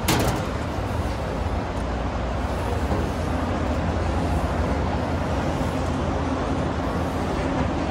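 Steady low rumbling outdoor background noise, with a single sharp knock right at the start.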